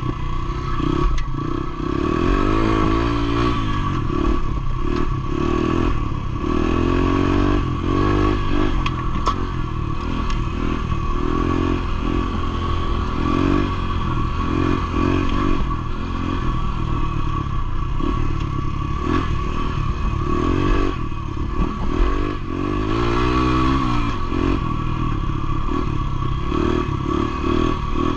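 Motorcycle engine running under way on a rough dirt trail, its pitch rising and falling again and again as the throttle opens and closes. Short knocks and rattles come from the bike over the stony ground.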